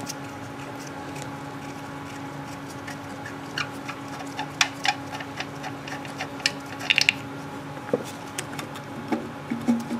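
Scattered light metallic clicks and taps, starting about three and a half seconds in and bunching up near the seventh second, as the loosened flywheel of an old Briggs & Stratton engine is worked off its crankshaft by hand. A steady low hum runs underneath.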